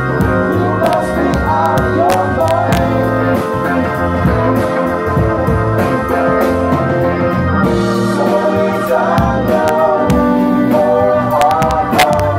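Live rock band playing loud and steady, with singing over sustained organ-like keyboard chords and drums.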